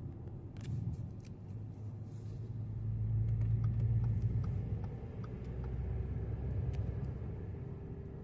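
Audi Q5 on the move, with low road and engine rumble under a steady whine from the drivetrain that rises slightly in pitch and grows stronger near the end. The cause of the whine is unknown to the owner. A few light clicks sound over it.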